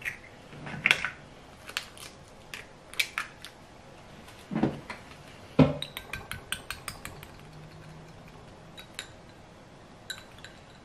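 A wire whisk clinking against a small glass bowl as it beats raw eggs, in quick runs of light ticks. Two heavier knocks come near the middle.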